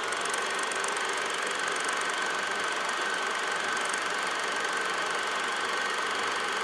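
Film projector running: a steady mechanical whir with one high, steady whine.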